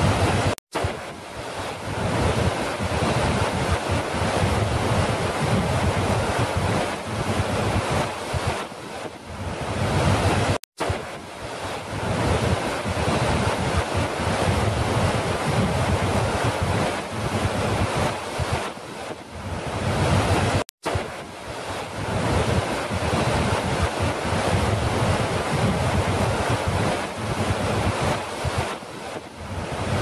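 A large, powerful waterfall: a dense, steady rush of falling water with a heavy low rumble underneath. The sound cuts out to silence for a split second three times, about every ten seconds.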